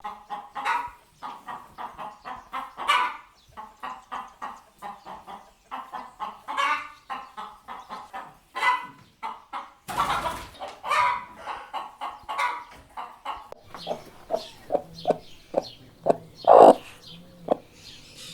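Chickens clucking: many short calls in quick succession, with a sudden change in the sound about ten seconds in and one louder call near the end.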